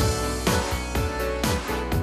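Instrumental intro of a pop song's backing track, with steady bass and a regular beat of about two strikes a second.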